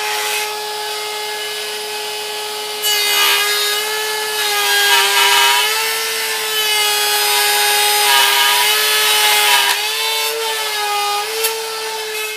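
Handheld wood router running with a steady high whine as its bit cuts a shallow scarf angle across the end of a wooden plank. The cutting gets louder about three seconds in, and the pitch sags and recovers slightly as the bit bites into the wood.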